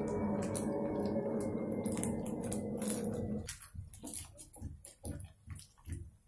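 Malpuas frying in hot ghee: scattered crackles and pops from the oil, and a slotted spoon moving them in the pan in the second half. A steady low hum underneath cuts off suddenly about three and a half seconds in.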